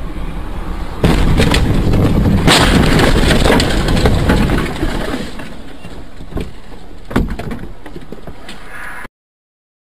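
Car collision heard from inside a vehicle: a sudden loud crash about a second in, followed by several seconds of crunching, scraping impacts. Two more knocks follow as it dies down, and the sound cuts off abruptly about nine seconds in.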